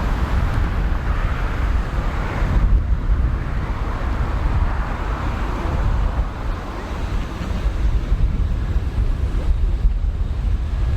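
Strong wind buffeting the microphone, a continuous low rumble under a steady rushing noise.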